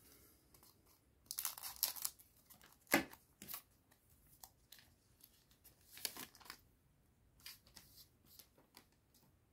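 A trading-card booster pack's foil wrapper being torn open and crinkled, in a few short rustling bursts with a sharp snap about three seconds in and light ticks in between.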